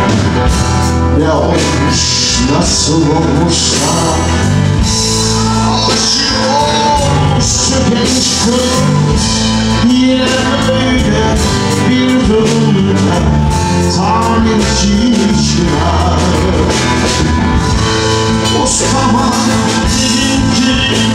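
Live rock band playing loudly and continuously: electric guitars, bass guitar and drums.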